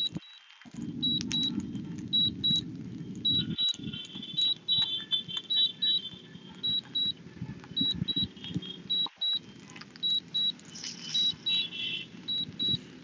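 DJI drone controller's return-to-home alert: short high beeps, mostly in pairs, repeating about once a second over a steady low rumble.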